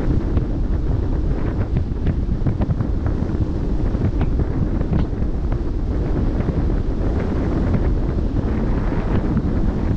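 Wind rushing over the microphone at the bow of a moving ship, a steady low rumble, with the wash of the sea beneath it and scattered faint short splashes.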